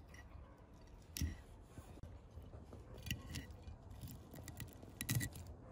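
A metal fork clinking and scraping against a porcelain plate while cutting into grilled fish: several sharp clinks, about one a second in, a few around three seconds and the loudest just after five seconds.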